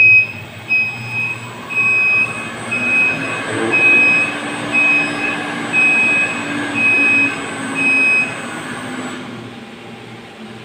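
An electronic controller beeper sounding a high beep about once a second over the steady noise of a running motor-driven machine. The beeping stops about eight seconds in, and the machine noise drops away a second later.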